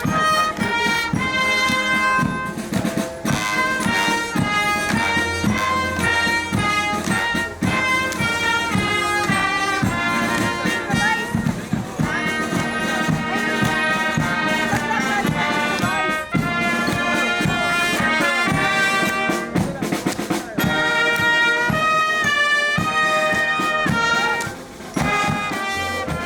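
Upbeat brass-led music with a steady beat, the tune moving in short, clearly separated notes.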